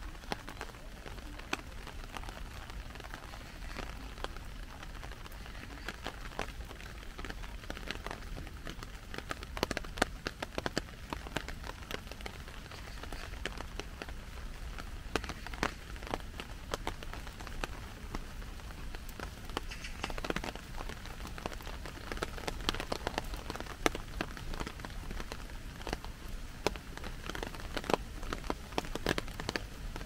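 Rain falling steadily, with drops tapping on a clear plastic umbrella overhead: many sharp, irregular taps over a constant hiss.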